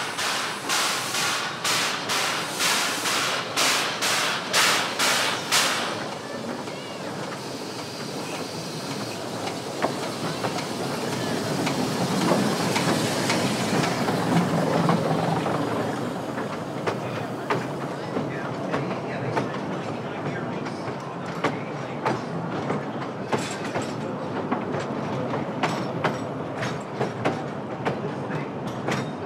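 Narrow-gauge geared steam locomotive working, its exhaust beating sharply about twice a second. About six seconds in the beats give way to the rumble of the train rolling by, and for the last ten seconds the wheels click irregularly over the rail joints.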